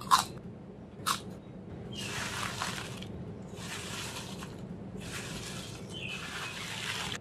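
Two sharp crunches of a potato chip being bitten, about a second apart, the first the loudest. Then about four one-second bursts of dry rustling and crackling as a hand rummages through a heap of potato chips.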